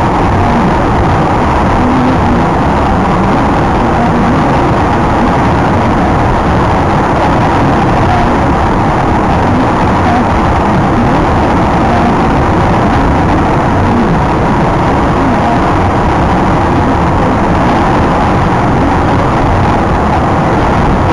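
Steady road and engine noise inside a car's cabin cruising at motorway speed, an even rumble of tyres and engine with no changes.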